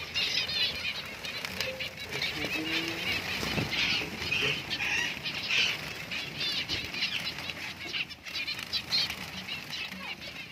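Small aviary finches chirping busily, with wings flapping as birds flutter about the nest boxes.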